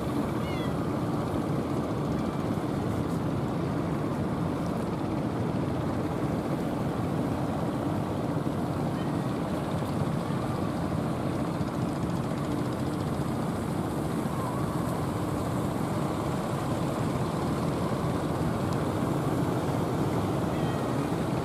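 Steady drone of fishing-boat engines running, blended with the wash of surf.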